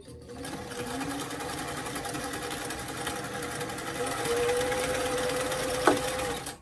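Vintage domestic sewing machine running steadily as it sews a straight-stitch seam: a fast, even run of needle strokes over the machine's hum. It picks up a little after about four seconds, with one sharp click near the end, and stops at the end.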